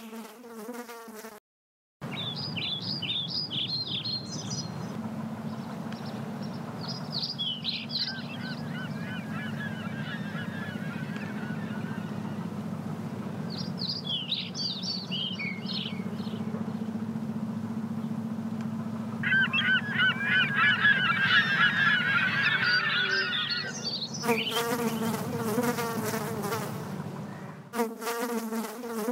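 Birds chirping in short bursts over a steady low hum, with a housefly buzzing at the start and again loudly for several seconds near the end.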